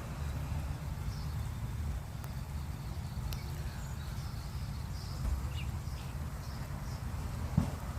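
Birds chirping in short, scattered calls over a steady low rumble, with one sharp knock near the end.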